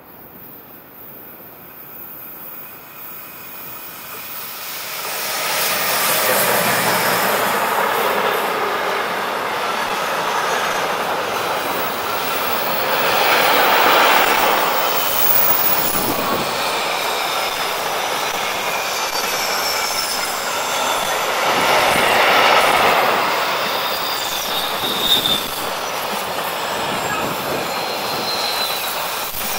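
DB class 185 electric locomotive and its intermodal freight wagons passing close by. The rolling noise builds over the first six seconds, then runs on loud as the wagons roll past with clattering wheels. Faint high squeals come from the wheel flanges on the curve.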